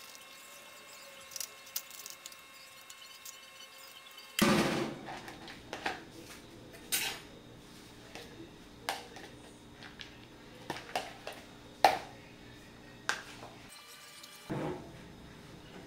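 A metal spoon and a hand grater knocking and scraping against a plastic tub as grated bar soap is scooped out: quiet for the first few seconds, then a dozen or so scattered sharp clinks and taps.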